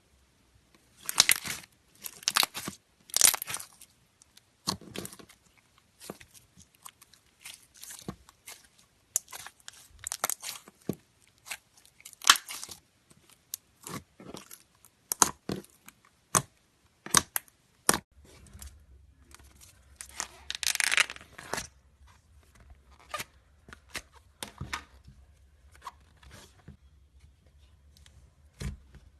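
Slime being squeezed and pressed by hand, making irregular crackling and popping bursts. The bursts are loudest about a second in and again around two-thirds of the way through.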